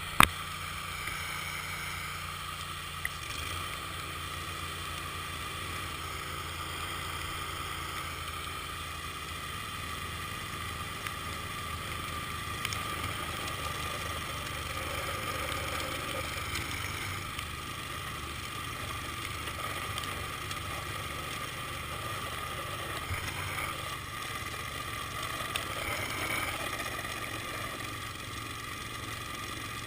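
An ATV-mounted snowblower running steadily: a low engine hum under a steady higher whine, with a sharp click at the very start.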